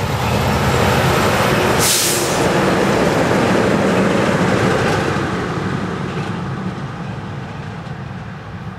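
A multi-trailer road train passing at highway speed: engine and tyre noise build as it approaches, with a short hissing rush of air about two seconds in as the prime mover goes by. The long string of trailers then rolls past and the sound slowly fades as it moves away.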